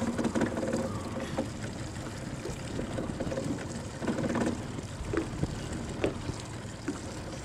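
Steady wind and lake-water noise around a small aluminum boat, with a few light knocks and a brief muffled voice about four seconds in.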